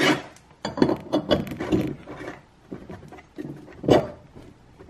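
Steel hub locker assembly being handled and fitted onto a Peerless 820 transaxle bull gear on a workbench: irregular clinks, scrapes and knocks of metal parts. The sharpest knock comes about four seconds in, as the piece seats on the gear.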